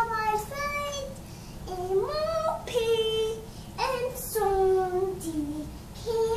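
A young child singing her own made-up song in a high voice, in short phrases of long held notes that slide up and down in pitch.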